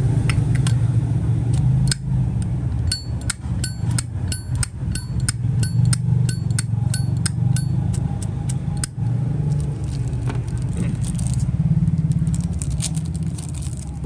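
Zippo lighter lid being flipped open and snapped shut over and over, sharp metallic clicks with a bright ring, about two a second, with a busier flurry near the end. A steady low hum lies underneath.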